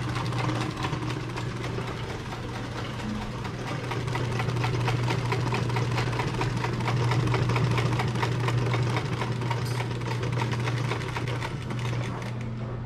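Industrial sewing machine stitching leather boot-shaft panels: a fast, even run of needle strokes over the steady hum of its motor.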